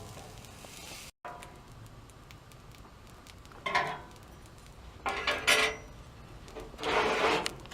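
Dishes and utensils clattering, in three short bursts.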